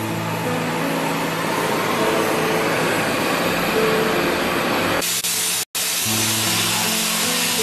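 Background music over a steady hiss of a CNC cutting torch cutting through steel plate. The hiss stops about five seconds in while the music carries on.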